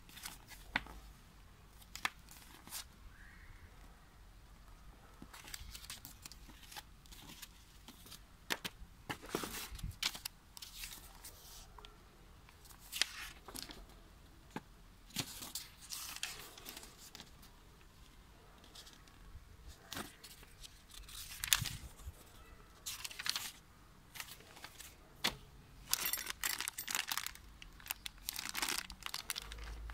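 Paper rustling as a leaflet and an instruction manual are handled and their pages turned, in short scattered rustles and flicks. Near the end, a clear plastic bag crinkling in the hands.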